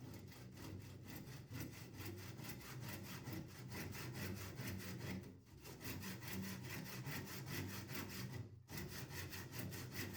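Wood being sawn by hand in quick, even strokes; the sawing breaks off briefly twice, about five seconds in and again near nine seconds.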